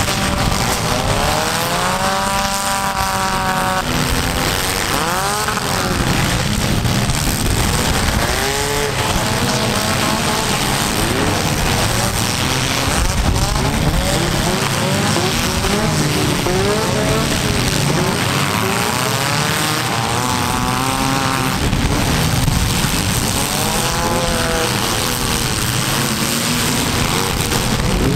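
Several compact-car engines of a mini-car demolition derby heat revving hard over and over, their pitch climbing and falling again and again.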